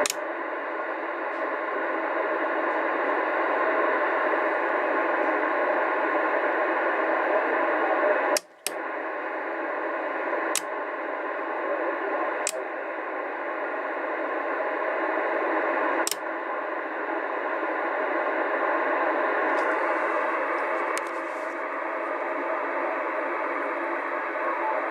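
Radio Shack DX-394 shortwave receiver's loudspeaker playing a received signal thick with static, narrow and thin-sounding. Sharp clicks come several times, with the level stepping down or up at some of them, and the audio drops out briefly about eight seconds in.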